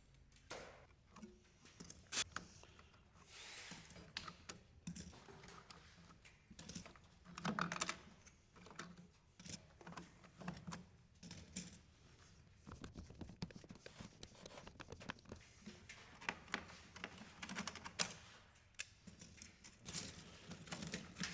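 Irregular small clicks and clatter of server memory modules being unlatched, pulled from their slots and handled.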